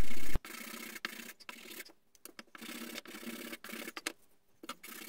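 Sandpaper rubbed by hand over a small strip of wooden trim, in short, irregular scratchy strokes with brief pauses.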